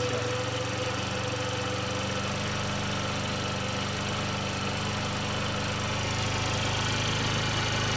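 Small scooter engine idling steadily while its carburetor is adjusted, the revs creeping up a little near the end.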